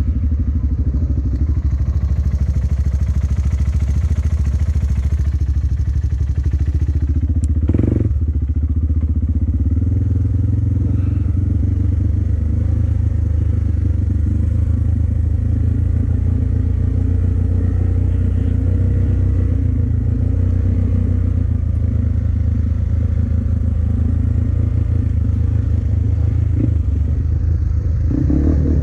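An off-road vehicle engine running steadily, with one knock about a quarter of the way through.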